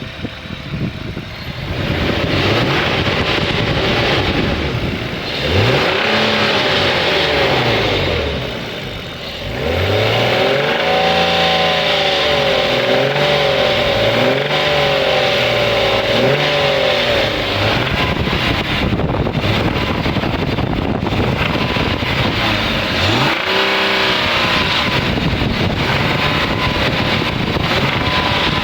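BMW E36 328i's M52 2.8-litre straight-six running with a rattle, blipped up and down in revs several times. The owner suspects the chain tensioner or VANOS unit, though the rattle seems to come from the back of the engine on the inlet side.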